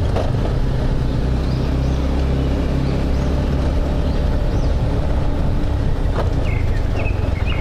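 Motorcycle engine running steadily at riding speed, with wind and road noise over it.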